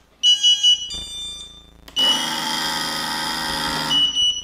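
5-inch FPV quad's brushless motors, driven by a 4-in-1 ESC, first play a run of short high beeps, then whirr steadily for about two seconds and stop, ending with another high beep. One motor is dead, which the owner hopes is only a bad cable connection between flight controller and ESC rather than a faulty ESC.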